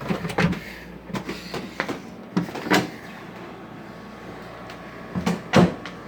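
A series of knocks and thumps, the two loudest about three and five and a half seconds in, over a steady low hum.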